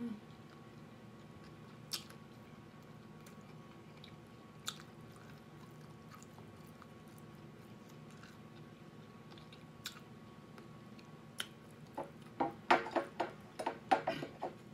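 A person chewing a mouthful of hard-shell chicken taco, mostly soft with a few scattered mouth clicks. In the last two or three seconds comes a quick run of loud smacking clicks.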